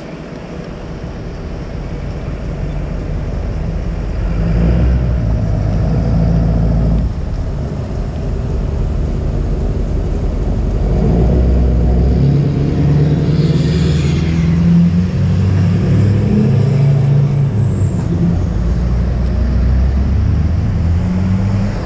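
Motor vehicle engines and traffic rumbling, swelling in waves as vehicles pass: louder about four seconds in and again from about eleven seconds on, with a brief hiss around fourteen seconds.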